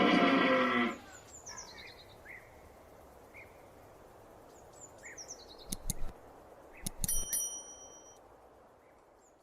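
A deer's drawn-out call breaks off about a second in. Outdoor ambience with faint bird chirps follows, broken by a few sharp clicks and a brief ringing tone about seven seconds in, then fades out.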